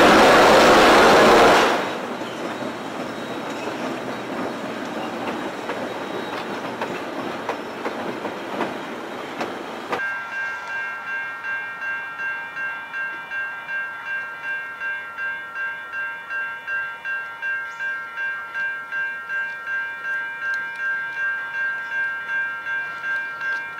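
A loud rushing noise cuts off about two seconds in. About ten seconds in, a level-crossing warning bell starts ringing, a steady electronic ding at about two strokes a second, signalling an approaching train.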